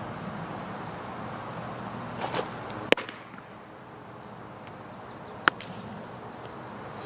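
A four-seam fastball popping sharply into the catcher's leather mitt about three seconds in. A second sharp pop about two and a half seconds later fits the ball being caught in the pitcher's glove on the return throw.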